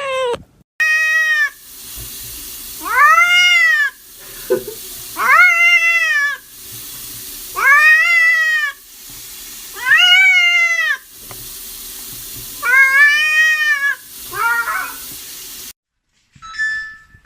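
Domestic cat meowing over and over: six long meows about two and a half seconds apart, each rising then falling in pitch, over a steady background hiss.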